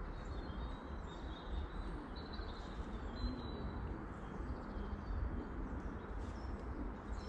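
Woodland ambience: faint, high bird chirps come and go over a steady low rumble and hiss.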